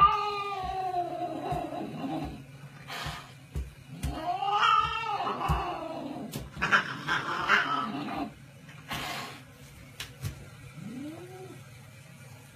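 Long, drawn-out animal yowls, three of them bending up and down in pitch, then a short one near the end, with scattered knocks between them.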